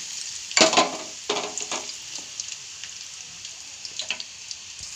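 Chopped onions sizzling in hot oil in a metal pan, freshly added. There are a few louder crackles in the first two seconds, then a steady, quieter sizzle.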